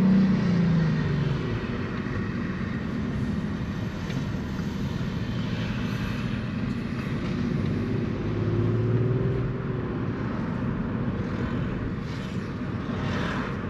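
Engine and road noise of a vehicle driving, heard from inside the cab. The engine note rises and eases off at the start, as it goes round a roundabout, and picks up again about eight seconds in.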